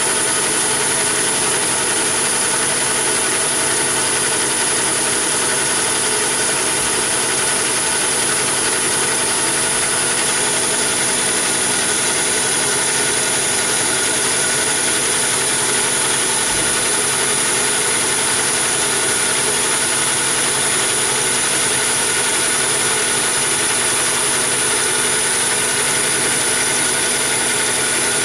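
Chinese mini lathe running steadily under load, turning a 316 stainless steel bar with a carbide insert tool, with a high whine over the machine's running.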